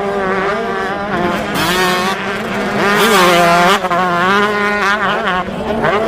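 Motocross dirt bike engines revving on a race track, several overlapping engine notes rising and falling in pitch as the riders open and close the throttle.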